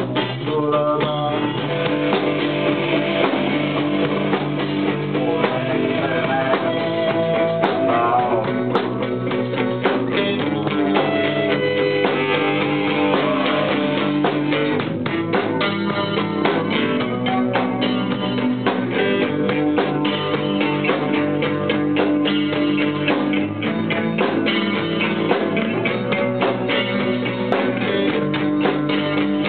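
Music led by guitar, with drums playing along.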